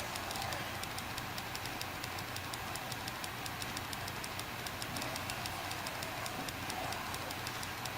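Seagate FireCuda 2 TB 2.5-inch 5400 rpm SSHD (ST2000LX001) ticking and clicking rapidly, several sharp ticks a second over a steady low hum. These are the noises that the owner finds scary and takes for a drive fault worth a warranty claim.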